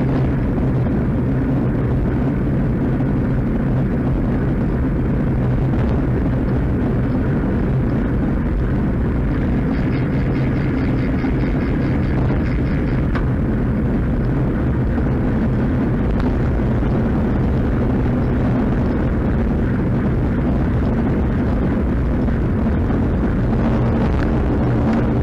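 Steady wind rumble on a bike-mounted camera's microphone while riding at speed, with the hum of tyres on asphalt underneath.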